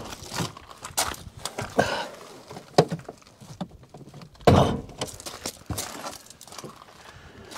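Footsteps on gravel, with scattered clicks and knocks and one louder thunk about four and a half seconds in.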